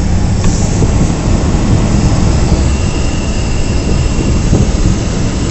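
A vehicle running steadily with a low, even rumble; a faint high whine joins about halfway through.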